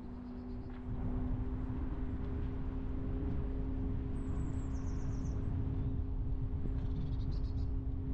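Car running, a steady low rumble with a constant hum, which gets a little louder about a second in. Small birds chirp in quick high trills three times over it.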